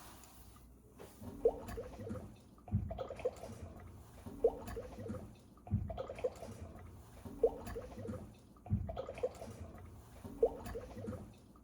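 Water gurgling and dripping in a regular cycle that repeats about every three seconds, each round with a sharp drip and a short low thump, over a faint steady hiss.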